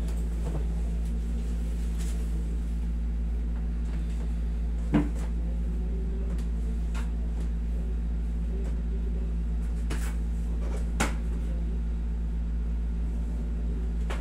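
Steady low hum of a window air conditioner, with a few short sharp cracks as hands press down on a man's back during a back massage. The loudest crack comes about five seconds in and another about eleven seconds in.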